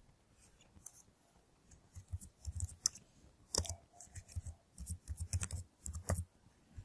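Computer keyboard typing: a run of irregular keystroke clicks, starting about two seconds in and going on almost to the end.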